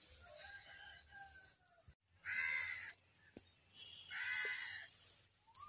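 A crow cawing twice, two harsh calls about a second and a half apart.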